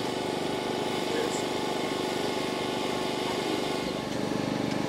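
Brabus 800 Mercedes-AMG C63 S's twin-turbo 4.0-litre V8 idling steadily, with a slight change in its note about four seconds in.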